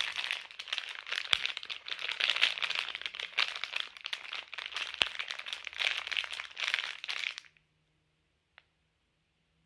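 Packaging crinkled and crumpled in a dense, continuous crackle for about seven and a half seconds, then it stops suddenly; one faint click follows about a second later.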